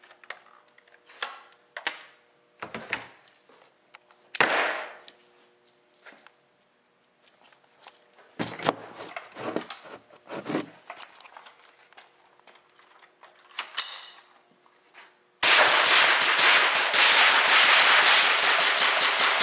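.22 rimfire Remington 597 rifle fire. Clicks and single shots come a few seconds apart, then for about the last four seconds a long run of rapid shots, fired as fast as the light trigger can be pulled.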